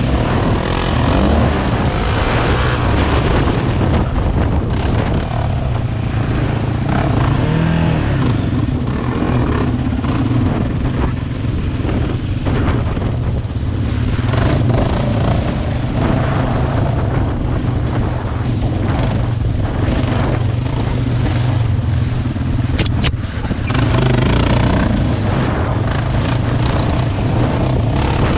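Yamaha Raptor sport ATV engine, a single-cylinder four-stroke, running steadily under throttle on a bumpy dirt trail, heard from the rider's helmet, with scattered knocks and rattles from the ride.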